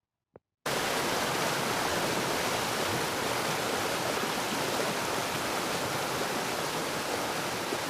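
Steady rushing noise of running water that starts abruptly after a brief silence and holds at an even level.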